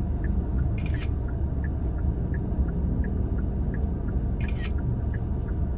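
Steady low road and engine rumble inside a moving car's cabin. Over it runs a light ticking about three times a second, with two short hisses, one about a second in and one near the end.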